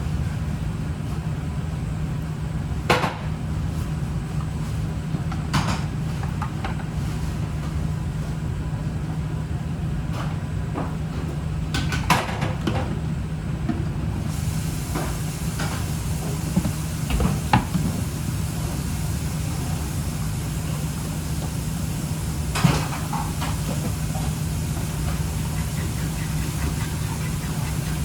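Kitchen cooking sounds: a steady low hum and hiss with a few sharp knocks and clinks of utensils or pans, about five of them spread through.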